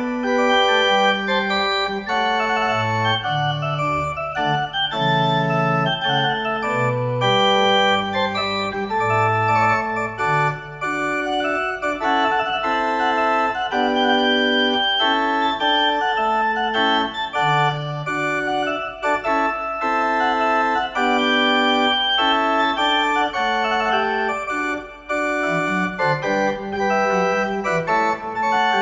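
Small wooden chamber organ with exposed flue pipes playing held chords over a moving bass line, with a brief break between phrases near the end.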